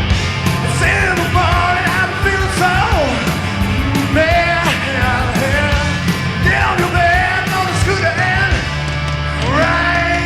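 Rock band playing live: drums and bass under a lead electric guitar that slides and bends its notes. Near the end the band holds a sustained chord over a held low bass note.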